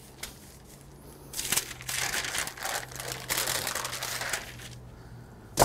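Parchment paper rustling and crinkling in a few long stretches as a rolled-out pie crust is lifted, folded and flipped over on it, then a single sharp smack near the end.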